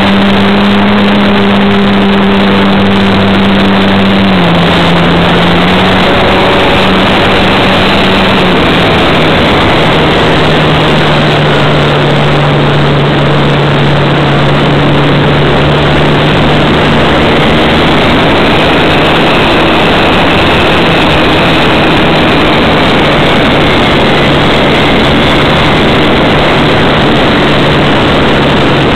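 Model airplane motor and propeller running, heard close up from a camera mounted on the plane, over a dense rush of wind noise. The motor's pitch drops in two steps, about four seconds in and again about eight seconds in, then holds steady.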